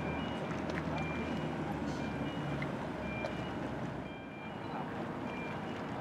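A vehicle reversing alarm beeping repeatedly in short tones that alternate between two pitches, over a steady low engine rumble.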